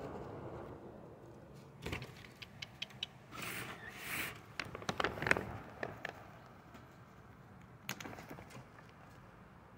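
Scattered light clicks, taps and rustling scrapes of a hand handling a peanut at an open sliding door and on the wooden deck, most of them between about two and six seconds in, with one more click near the end.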